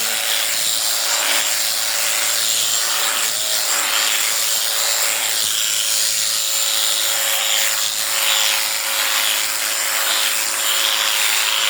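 Electric sheep shears running steadily with a constant motor hum and high whine, the cutter rasping through the fleece in repeated strokes.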